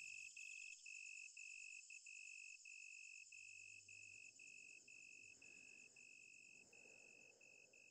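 Faint cricket chirping: a steady run of short high chirps, about two a second, fading gradually toward near silence.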